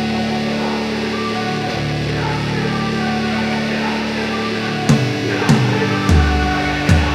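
Rock music with sustained guitar chords. A beat of sharp hits comes in about five seconds in.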